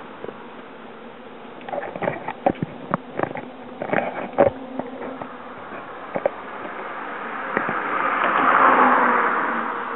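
A run of sharp clicks and knocks from riding a bicycle, then a car passing on the bridge roadway alongside, its noise swelling to a peak about nine seconds in and fading.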